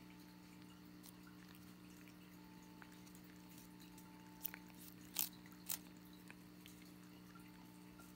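Domestic cat licking a squeeze-tube lickable treat: faint wet tongue clicks, with three sharper smacks about halfway through, over a faint steady hum.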